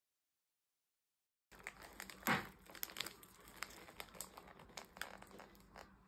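Wrapping paper crinkling and rustling as it is handled, with many sharp crackles; it starts abruptly about one and a half seconds in after dead silence, with the loudest crackle shortly after.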